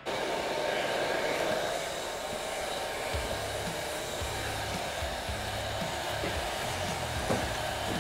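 Electric heat gun running with a steady blowing hiss, used to soften the T-88 epoxy joints of a wooden aileron. A low rumble and a few light knocks join from about three seconds in.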